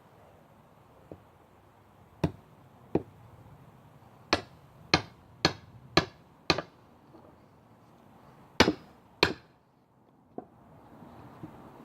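Sledgehammer striking a steel splitting wedge (a Roughneck wood grenade) driven into a Holm oak log: about nine sharp blows, a pair, then a run of five at about two a second, then another pair.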